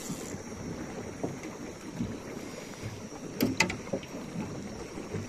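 Water lapping and sloshing, with a faint steady high tone and two sharp clicks about three and a half seconds in.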